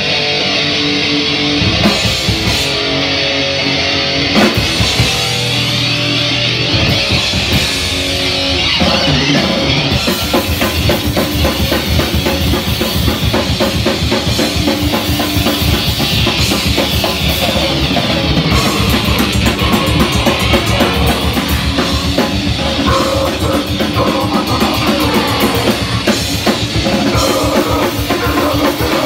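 Loud live noise-rock band playing, with distorted electric guitar and a drum kit. About nine seconds in the drumming turns dense and fast.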